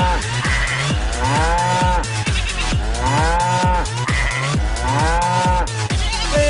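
Electronic dance beat with a cow's moo sampled into it, each moo rising then falling in pitch and repeating in time with the beat about every one and a half to two seconds.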